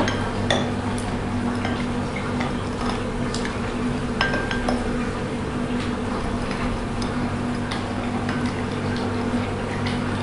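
Muddler pounding lime, strawberries and cane sugar in the bottom of a tall glass: irregular wet knocks and glassy clinks, over a steady low hum.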